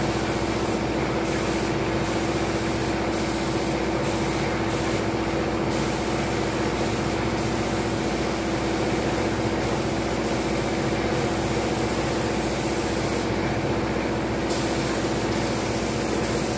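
Gravity-feed air spray gun hissing steadily as it sprays primer onto a pickup bed's sheet metal, with a steady hum beneath it.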